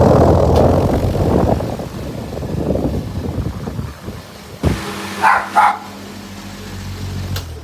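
Everest oscillating electric fan running with a loud rush of air, then a click about four and a half seconds in leaves a quieter motor hum. A second click near the end cuts the hum off. A dog barks twice while the hum is running.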